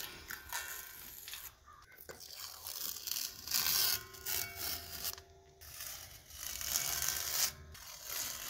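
Painted-over tape being peeled off a painted steel beam: a crackly ripping hiss in several long pulls separated by short pauses.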